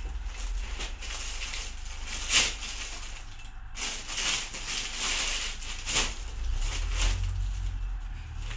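Plastic packaging crinkling and rustling as clothes are unwrapped and handled, with sharper crackles a little over two seconds in and twice more later on.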